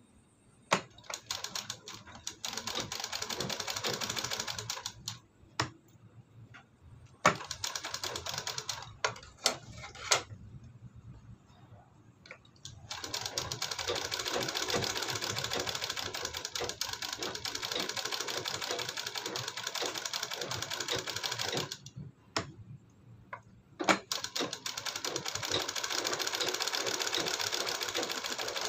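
Electric sewing machine stitching in runs of a few seconds up to about nine seconds, stopping and starting again, as a row of stitching is sewn close to the edge of a neckline facing. Sharp single clicks fall in the pauses between runs.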